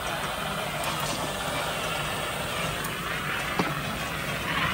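Fire extinguisher jet spraying with a steady hiss onto a coach's wheel-mounted brake disc, which has overheated and is smoking because the brake stuck and would not release.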